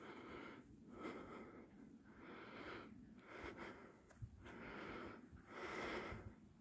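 A person breathing audibly, faint, in even in-and-out swells about every one and a half to two seconds.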